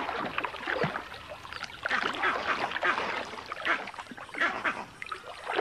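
Irregular splashing and sloshing of muddy water in uneven surges as crocodiles thrash and tear at an impala carcass.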